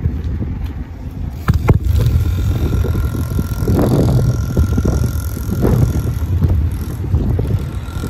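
Heavy wind and rubbing rumble on a covered microphone during a bicycle ride, with rattling knocks from the bike. Two sharp knocks come about a second and a half in. A faint steady whine runs through the middle and returns near the end: the 50 cc mini trail bike's engine heard from afar.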